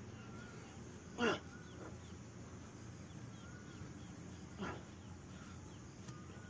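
Two short animal yelps, each falling sharply in pitch, the louder about a second in and a fainter one near five seconds in, over faint outdoor background.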